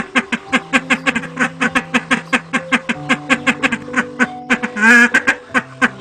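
A rapid run of repeated animal calls, about five a second, with one louder, drawn-out wavering call about five seconds in, over soft sustained background music chords.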